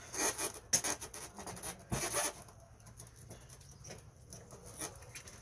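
Metal tool scraping and clicking against a bent cotter pin in the plastic propeller hub of a Hangkai 3.5 hp outboard, in short irregular bursts with a sharper click about two seconds in.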